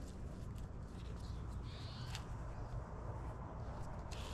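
Faint rustling and light clicks of artificial sinew being pulled through the coils of a pine-needle basket lid as it is stitched, over a steady low background rumble.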